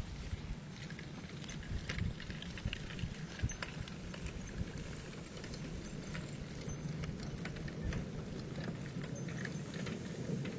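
Two Percheron draft horses walking past, their hooves clopping on soft tilled soil, with harness and chains jangling. Under them runs a steady low rumble of a wheeled forecart and tire drag scraping over the dirt.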